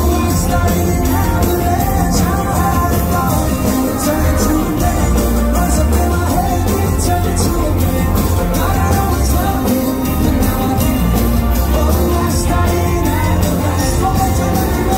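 Live pop band playing, recorded from within the audience: a male singer over a steady drum beat and heavy bass.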